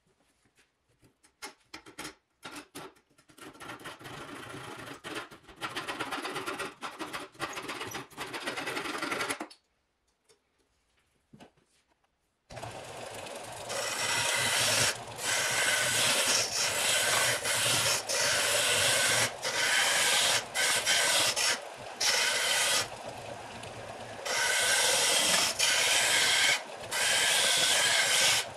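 Bench belt-and-disc sander starts about halfway through and runs steadily, growing louder in repeated stretches, with short gaps, as a wooden axe handle is pressed against the sanding belt. Before it, a few clicks and several seconds of rough scraping on wood, which stop.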